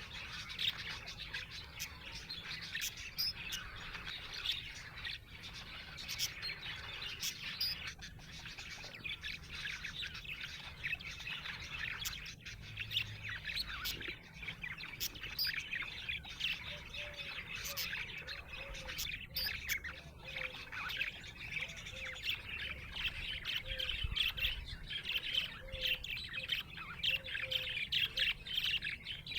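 Budgerigars chattering: a dense, continuous mix of chirps and warbles with occasional squawks and clicks. In the second half a lower short note repeats about once a second beneath the chatter.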